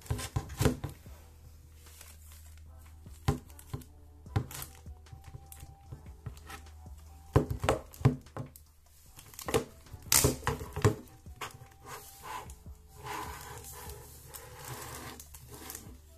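Hard plastic clicks and knocks as a portable fan's hinged plastic hook is folded and the fan is turned in the hands, with plastic wrap crinkling, over soft background music.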